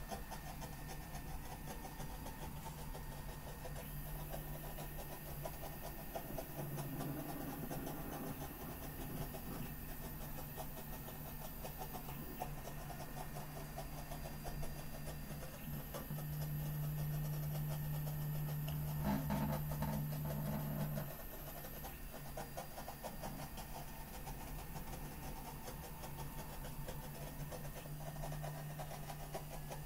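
Stepper motors of an MPCNC-driven sand table humming steadily as a magnet under the sand drags a steel ball along its path at about 24 mm/s; the hum shifts in level in stretches as the motion changes, louder for a few seconds past the middle.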